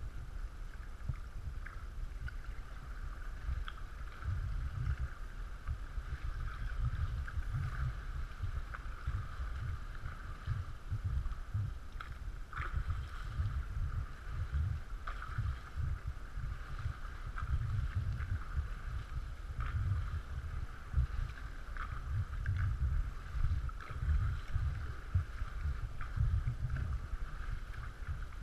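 Water lapping and splashing lightly around an inflatable sea canoe gliding through a sea cave, over a steady low rumble, with scattered small clicks and drips.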